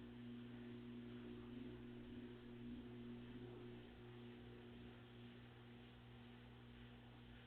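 Faint, steady low hum of a Samsung WF45K6500AV front-loading washer running quietly, its higher tones fading about halfway through.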